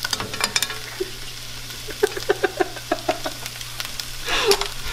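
Diced onion and red bell pepper sizzling in a nonstick frying pan, with a silicone spatula stirring and scraping the pan in a run of short strokes.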